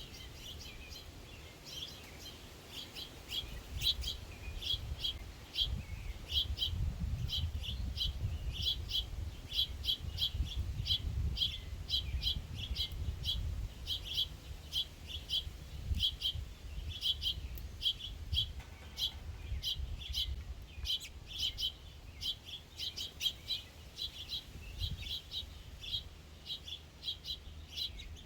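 Small songbirds chirping steadily, many short high chirps in quick succession, over a low rumble.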